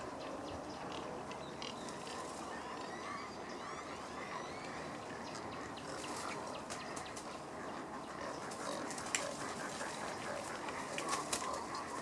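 Wading-bird rookery: a steady din of many birds calling, full of short clicks and calls, with a few sharper, louder clicks here and there.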